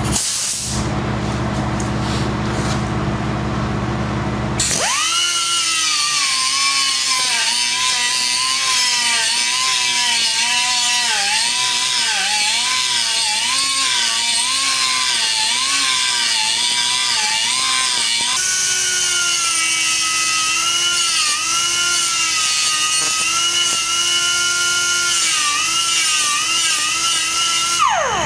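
Small straight grinder with a thick cutoff wheel starting about five seconds in and whining as it grinds cast iron, its pitch dipping and wavering as the wheel loads in the cut, then winding down at the end. It is feathering the corners of a groove cut along a crack, to prepare the crack for welding. A steady low hum runs underneath before the grinder starts.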